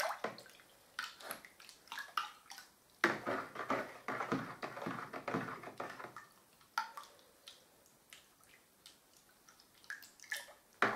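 Wallpaper paste being stirred with a stick in a plastic bucket of water: irregular swishing and sloshing with occasional short clicks, quieter for a few seconds before picking up again near the end. The paste is just starting to thicken.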